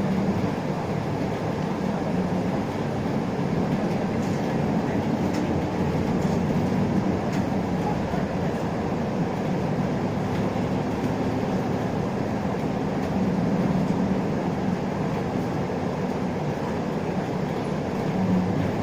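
Isuzu Erga LV290 city bus heard from inside the cabin while driving: a steady diesel engine drone mixed with road and tyre rumble, swelling slightly about two-thirds of the way through and again near the end, with a few faint ticks early on.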